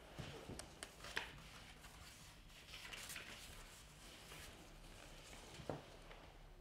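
Near silence with a handful of faint, short clicks and taps, the clearest one near the end.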